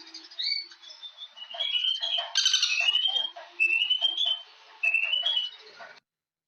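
Birds singing: short rising whistled phrases repeated over and over, with a louder, harsher call about two and a half seconds in. The sound stops abruptly near the end.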